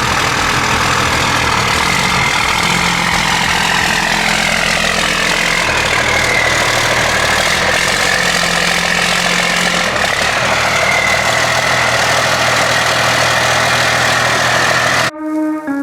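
The truck's 5.9-litre 12-valve Cummins turbo-diesel inline-six running steadily, with a faint wavering whine over the engine note. It cuts off abruptly near the end as guitar music comes in.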